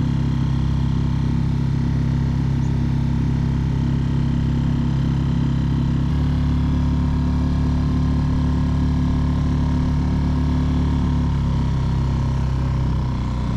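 A Mercury F 3.5 single-cylinder four-stroke outboard motor running steadily under way on a small inflatable boat. Its note shifts about six seconds in and again around eleven seconds, as the throttle changes.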